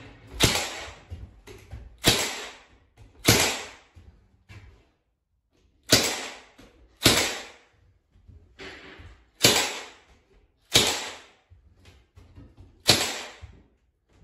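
Cordless battery-powered nailer firing eight times, a sharp shot every one to two seconds, driving nails through wood trim into the ceiling.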